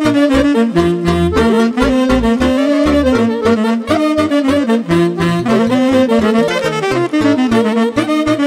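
Upbeat instrumental band music: a wind-instrument lead melody over a steady bass beat.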